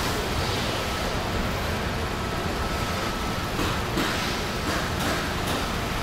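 Car assembly line din: a steady mechanical rumble and hum of the line, with several short hissing bursts in the second half.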